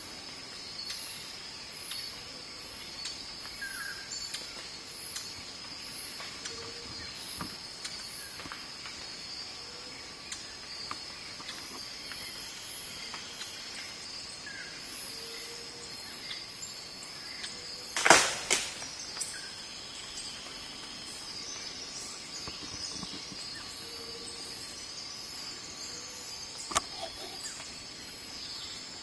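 Forest ambience of insects droning steadily, with a high, rapidly pulsing insect trill and scattered faint bird chirps. About eighteen seconds in comes a loud sharp crack with a couple of quick follow-up clicks, and a single sharp click sounds near the end.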